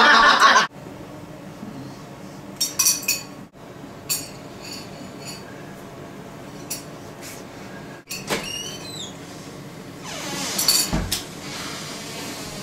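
A loud gust of blowing cuts off under a second in, then metal chain clinking and jangling comes and goes in scattered bursts, some clinks ringing briefly.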